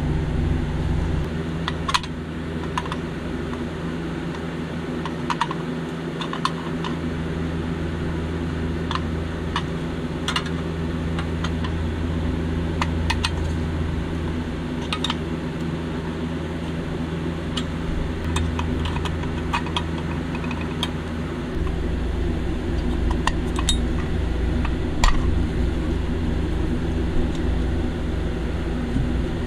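Light clicks and clinks of a Tonka toy van's pressed-steel body, chassis and plastic interior being handled and pulled apart, scattered irregularly, over a steady low hum.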